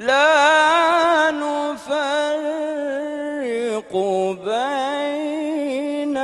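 A man reciting the Quran in the melodic tajweed style: one voice singing long held notes that waver up and down in pitch, in a few phrases, starting straight after a short silence.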